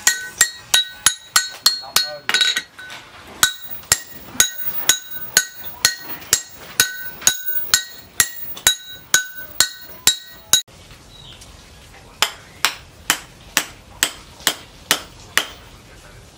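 Wooden mallet blows on a knife held upright in a steel post, driving its handle fittings onto the tang: about three strikes a second, each with the steel blade ringing at several clear pitches. After a short break about ten seconds in, a second run of duller blows follows at a slightly slower pace.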